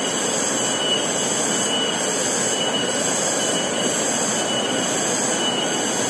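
Steady rush of water over the rocks of a forest stream, with a faint high whine over it.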